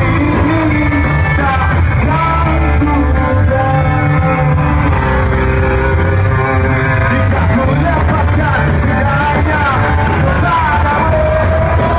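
Live rock band playing loudly: electric guitars, bass and drums with a lead singer, heard from among the audience.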